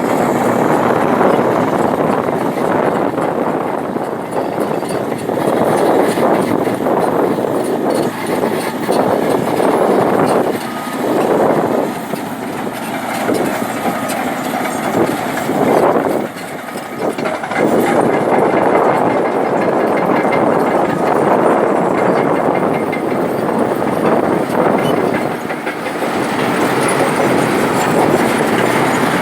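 Excavator running and working, its engine and machinery making a loud continuous noise that rises and falls in level.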